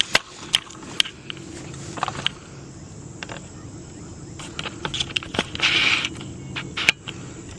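Hunting gear being handled at close range: a string of sharp clicks and knocks with a short rustling scrape near the end, over a steady low hum.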